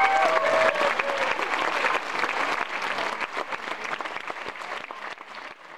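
Audience applauding, the clapping fading out gradually; a few held tones die away in the first second or so.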